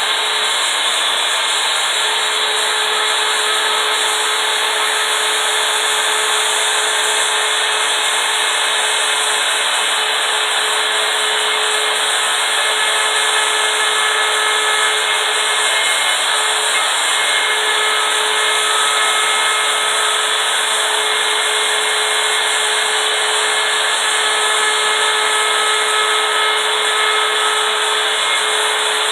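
Router fitted with a small CNC carving bit running steadily and cutting letters into a wood sign, a constant motor whine over the cutting noise.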